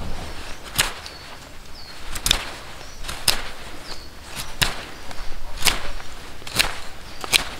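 Knife shaving a green wooden stick: seven sharp carving strokes, about one a second.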